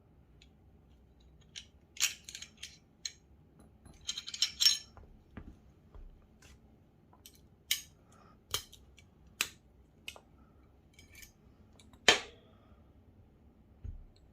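Small metal parts of a Glock pistol clicking and clinking as they are handled while the slide is worked on to change the firing pin spring. There are about a dozen scattered sharp clicks, some in quick clusters, and the loudest comes about twelve seconds in.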